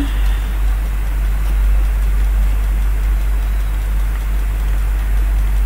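Steady low hum with background hiss from the recording, running without change.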